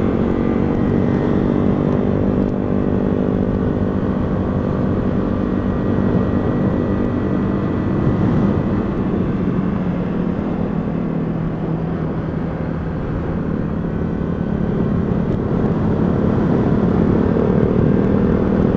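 125cc motorcycle engine running steadily while riding, its pitch dipping through the middle and rising again near the end.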